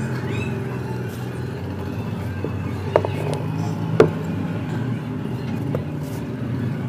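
An empty terracotta pot being handled and set down, with a small knock about three seconds in and a louder, sharp knock a second later. A steady low hum runs underneath.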